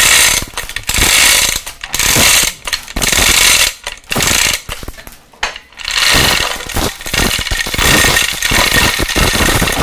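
Hand-operated chain hoist on a shop crane being worked, its ratcheting mechanism clattering in repeated strokes about once a second.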